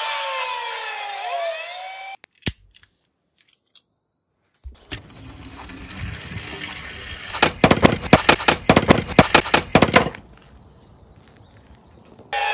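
A police siren sound with gliding, wavering pitch cuts off about two seconds in. After a pause, a die-cast Tomica police van rolls down a wooden board with a rising rumble, then clatters in a rapid run of sharp knocks for about two and a half seconds as it tumbles over onto its side. The siren starts again near the end.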